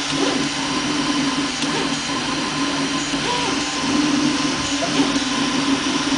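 3D printer running mid-print: a steady mechanical whir with a low motor tone that swells and fades as the print head moves over the black plastic gears.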